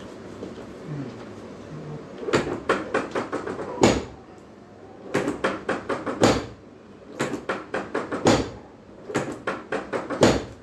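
Rapid knocking and tapping during a hands-on chiropractic treatment on a treatment table, in four bursts about a second long, each ending in a louder thump.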